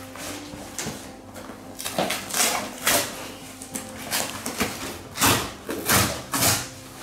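Cardboard shipping box being torn open by hand: a series of short ripping and rustling rasps, the loudest few near the end.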